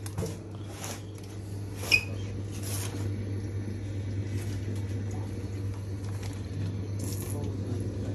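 Steady low electrical hum of running aquarium equipment, with brief rustles of plastic fish-shipping bags being handled and a sharp click about two seconds in.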